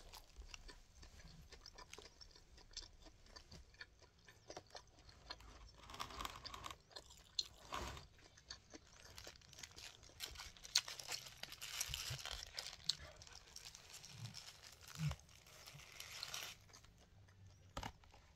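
A person chewing mouthfuls of a kebab wrap, with crunchy bites and the occasional crinkle of its paper wrapper.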